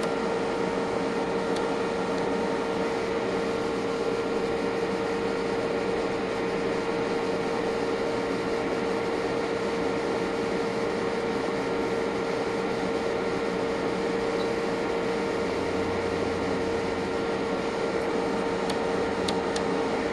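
Steady whirring hum and hiss of electronic test-equipment cooling fans, with one constant mid-pitched tone above it. A few faint ticks near the end.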